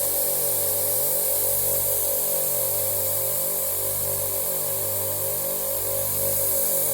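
Compressed air rushing out of an air compressor's tank as it is drained, a steady loud hiss with a low pulsing hum beneath it.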